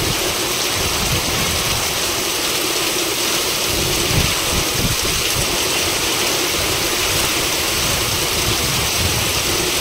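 Heavy rain pouring steadily onto corrugated sheet roofs, with gusts of a strong storm wind.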